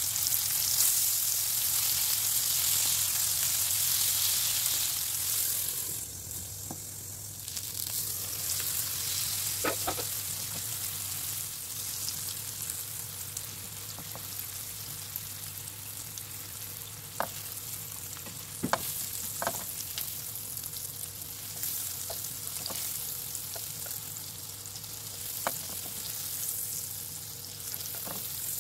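Food frying in oil in a pan: a steady sizzle, stronger for the first six seconds and then softer, with a handful of sharp clicks of a utensil stirring against the pan.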